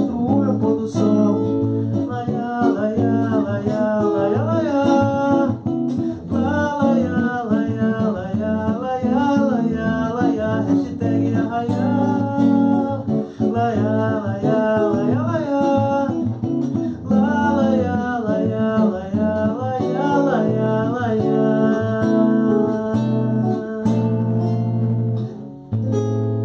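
Samba de terreiro song: a man sings a wordless melody over strummed acoustic guitar. The voice breaks off briefly near the end while the guitar keeps playing.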